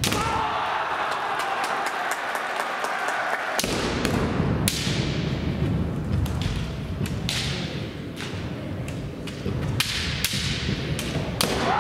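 Kendo bout: fencers' long drawn-out kiai shouts at the start and again near the end, with sharp clacks of bamboo shinai against each other and the armour and feet stamping on the wooden floor, echoing in a large hall.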